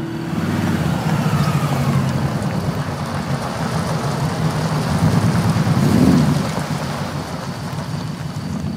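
A car's engine running as it drives slowly over gravel, tyres crunching, loudest about six seconds in.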